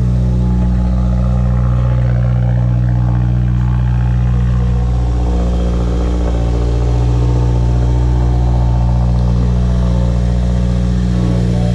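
Subaru WRX's flat-four engine idling steadily, a constant low hum that does not change.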